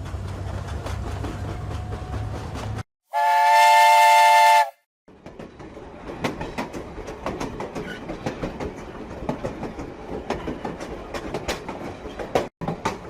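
Train running with a low rumble, then a loud train horn blast lasting about a second and a half, the loudest sound. After a short break comes rolling rail-car noise full of rapid sharp clicks and rattles.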